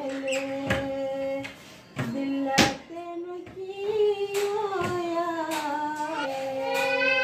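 A woman singing a Punjabi tappa in long, drawn-out wavering notes, with a few sharp knocks from her hand tapping a yellow tin used as a drum.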